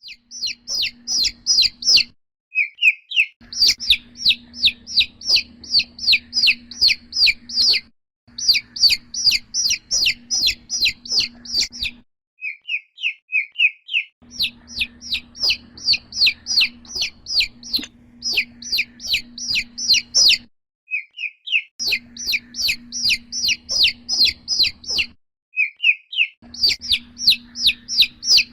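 Chick peeping: rapid, high-pitched peeps, about five a second, in runs of several seconds broken by short pauses. Each run opens with a few softer, lower peeps, with a faint low hum beneath.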